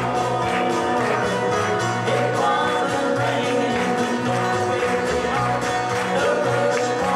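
Live music from a trio performing on stage, amplified through a PA: a melody with some singing over a steady bass line.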